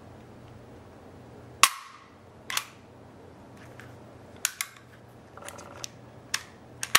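Sharp metallic clicks from an FN FNX-45 Tactical pistol's controls and action as it is handled. About eight clicks come at uneven spacing, the loudest about a second and a half in.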